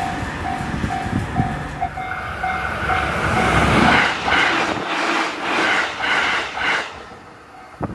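JR East E531 series electric train passing at about 125 km/h: a loud rushing, with the wheels clacking in an even rhythm over the rail joints as the cars go by. A level crossing alarm bell beats in the first couple of seconds.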